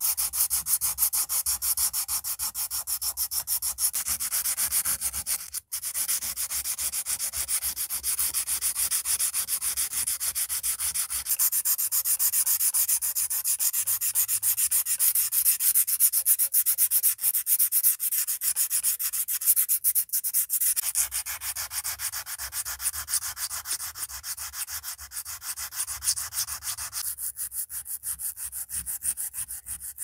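Sandpaper rubbed back and forth over the rusty steel blade of an old pocket knife, a fast, steady scratching to scour off rust and grime. There is one brief break about five seconds in.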